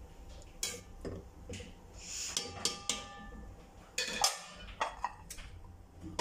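Steel spoon knocking and scraping against an aluminium cooking pot while stirring rice into boiling stock, with scattered clinks, one ringing briefly about halfway through. Near the end the aluminium lid is set on the pot with a louder clank.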